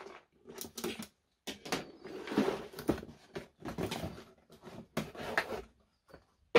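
A cardboard parts box being slit open with a utility knife and its lid lifted off: irregular scraping and rustling of cardboard with a few short knocks.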